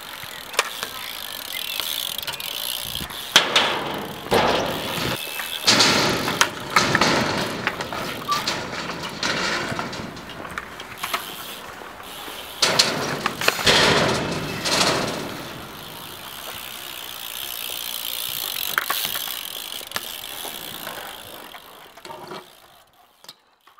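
BMX bike rolling on concrete: tyre noise on the rough surface, with repeated knocks and clatters as the wheels land and the bike's parts rattle.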